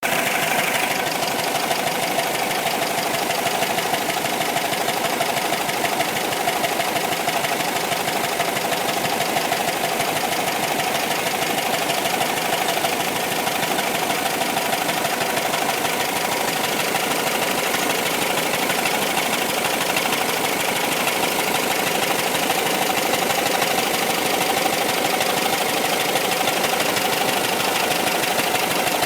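Fuel-injected 2.0-litre air-cooled flat-four engine of a 1977 VW Westfalia camper running steadily at an even speed, with no revving.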